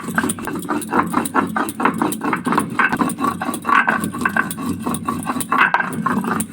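Whole garam masala (cinnamon, cloves and cardamom) being ground by hand: a steady run of quick, rhythmic grinding strokes, several a second.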